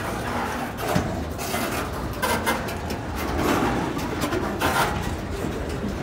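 Freight train moving slowly, a GP15-1 diesel locomotive shoving its cars: a steady low rumble with scattered clanks and clicks from the cars and wheels.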